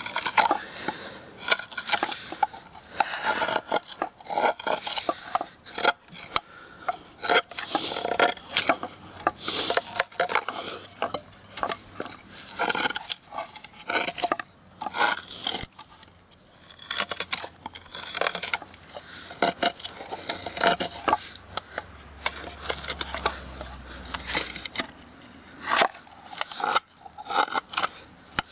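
Lionsteel SR-1's D2 steel knife blade cutting into a wooden block by hand. It makes a run of irregular scraping strokes, several a second, as chips are split off, with brief pauses between bursts.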